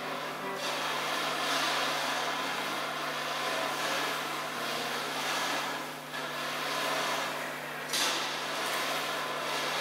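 Improvised ambient noise music from electric guitar through effects pedals and hand percussion: a hissing, noisy wash that swells and ebbs over a steady low amplifier hum, with a sharp bright hit about eight seconds in.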